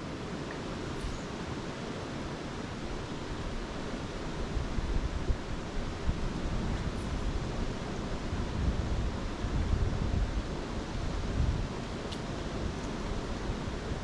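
Wind buffeting the microphone: a low, gusty rumble over a steady hiss, growing stronger from about four seconds in.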